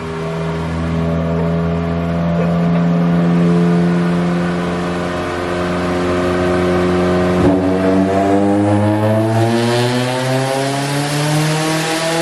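Turbocharged 2022 Subaru BRZ's 2.4-litre flat-four running on a chassis dyno: it holds a steady note for several seconds, then from about eight seconds in climbs smoothly in pitch as the car pulls up through the revs.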